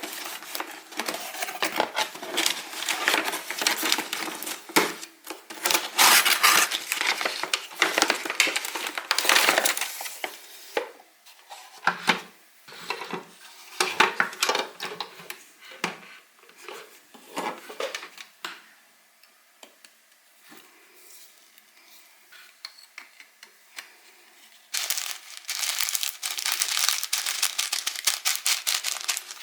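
Hands handling a plastic toy vacuum cleaner and its packaging, with dense clicking, crackling and rattling. It quietens to a few faint clicks about two-thirds of the way through, then the rattling picks up again near the end.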